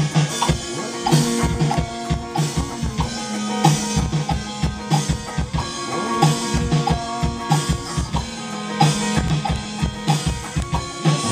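A band playing a song: a drum kit keeps a steady beat with kick drum hits, under bass and guitar.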